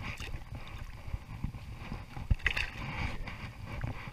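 Water splashing and sloshing around a salmon held in a landing net while hands work it free, with scattered knocks and a sharp knock a little over two seconds in.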